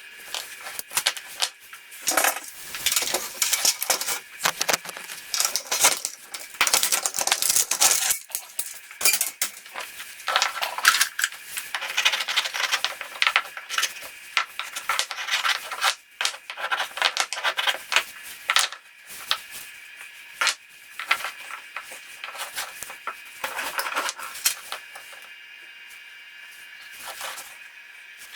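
Irregular clattering and scraping of hard objects being handled, with many sharp clicks, dying down near the end.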